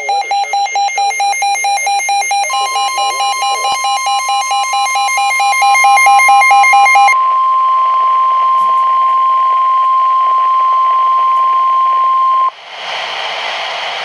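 NOAA Weather Radio EAS alert. Buzzy, rapidly pulsing SAME digital header data bursts from two stations overlap until about 7 s in. About 2.5 s in, the steady 1050 Hz weather alert tone starts and holds for about ten seconds before cutting off sharply. A short stretch of radio static hiss follows.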